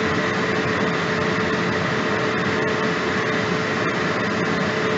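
Steady rushing noise with a constant hum from the running kitchen stove, where an open stockpot of oysters is steaming over the lit burner.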